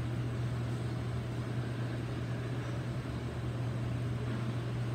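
Steady low hum with an even hiss of moving air from room ventilation, unchanging throughout.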